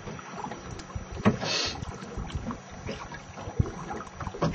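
Small boat drifting at sea with its engine off because it has run out of fuel: scattered knocks and water noise against the hull, with a brief louder hiss about one and a half seconds in.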